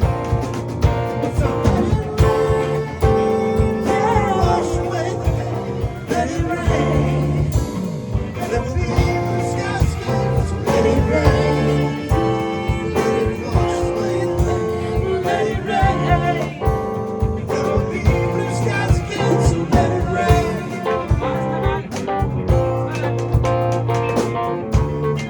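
Guitar-led band music playing an instrumental break in a blues-rock song, with a steady rhythm under it.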